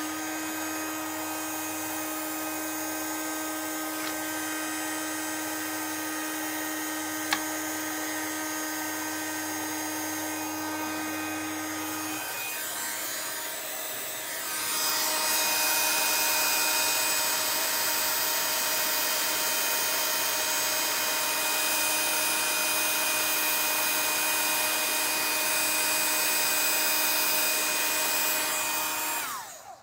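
WOW embossing heat gun blowing steadily while it melts embossing powder on a card. A steady tone drops out about twelve seconds in, the blowing gets louder a few seconds later, and it is switched off abruptly just before the end.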